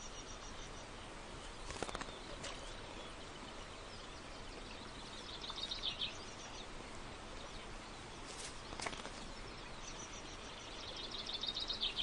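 Faint outdoor background with a small songbird's fast, chattering song in two bouts, about five seconds in and again near the end, and a few faint clicks between them.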